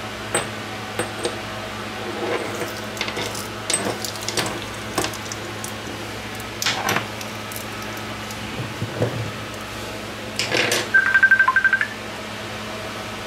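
Light clicks and clatter of a metal rod against a cup of liquid on a workbench, over a steady low hum. About 11 seconds in comes a short electronic phone-ring trill of rapid beeps, the loudest sound here.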